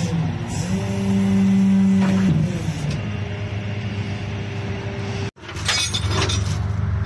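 Flatbed tow truck's engine idling, twice rising to a higher steady speed for a second or two and dropping back. After a sudden break near the end, quick rattling clicks sound over the steady idle.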